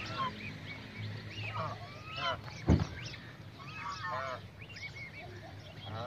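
White domestic geese honking in short calls while their goslings peep continually in quick high chirps. A single sharp thump about halfway through is the loudest sound.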